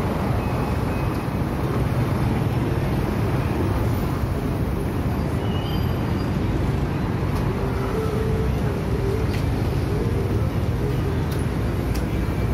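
Steady traffic noise of a busy city street, with cars and motorcycles running.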